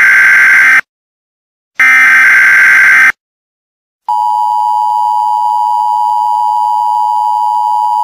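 Emergency Alert System test signal: the end of one burst and then one more full burst of the SAME digital header, a harsh data screech about a second long with short silences between. After about a second of silence, the steady EAS attention tone begins about four seconds in and holds.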